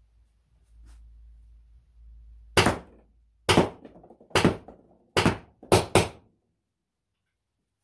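Six shots from a PepperBall VKS launcher, sharp pops about a second apart with the last two close together, the pepperballs smacking into a cardboard box target.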